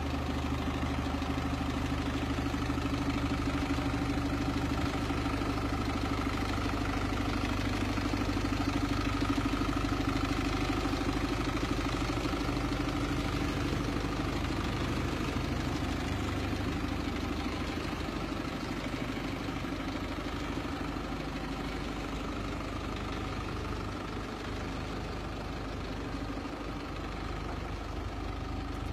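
2009 Iveco Eurocargo truck's diesel engine idling steadily, a little fainter near the end.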